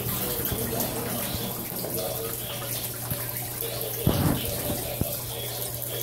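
Vortex water fountain running: water swirling and splashing as it drains down the whirlpool in a glass cylinder, over a steady low hum. A louder thump comes about four seconds in.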